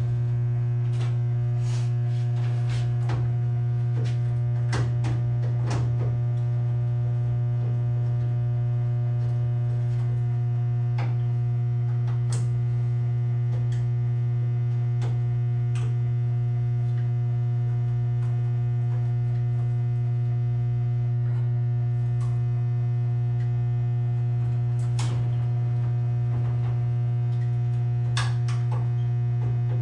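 Steady low mains hum of two 150 kVA transformers, with a ladder of fainter higher tones above it. Scattered light clicks and taps come from wires and tools being handled in the open breaker panel, most of them in the first few seconds and a few more near the end.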